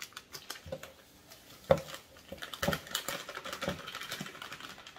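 Irregular light clicks and knocks from handling a plastic shaker cup and an MRE drink-powder pouch on a counter as the powder goes into the water. The sharpest knock comes about a second and a half in, with a few smaller taps after it.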